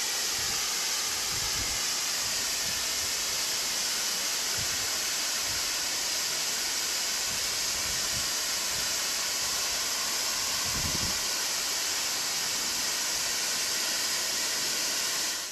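Shower head spraying water: a steady, even hiss that cuts off suddenly at the end.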